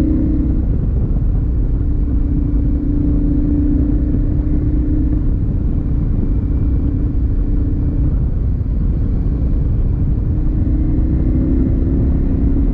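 KTM motorcycle engine running at a steady cruise under a heavy low rumble. The engine note fades about eight seconds in and comes back a couple of seconds later.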